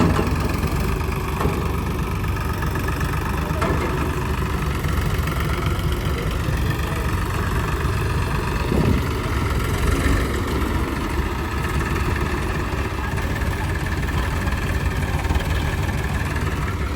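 Diesel engine of heavy machinery running steadily at a low, even pace, with no revving.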